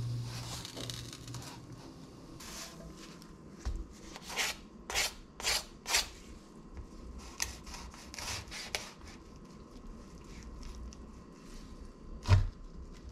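Kitchen handling sounds: a hiss as the rolled wrap is handled in the frying pan, then a run of short rasping strokes, then a knife cutting through the toasted shawarma wrap and knocking once, loudly, on a wooden cutting board near the end.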